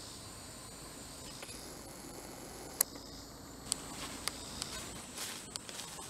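Steady high-pitched chorus of insects such as crickets, with one sharp click about three seconds in and a scatter of lighter clicks after it.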